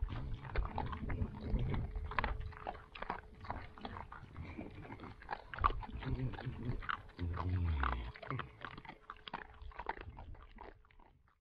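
A group of javelina (collared peccaries) crunching and chewing feed off the ground in a steady run of quick crunches, with a few short low grunts. The sound fades away near the end.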